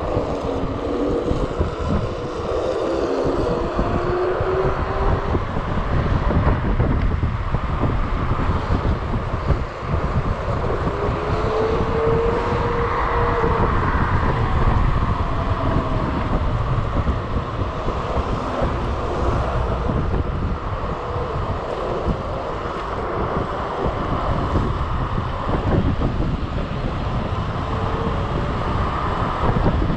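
Electric scooter ride: a steady rush of wind over the microphone with low rumble, and a faint whine from the hub motors that rises and falls with speed.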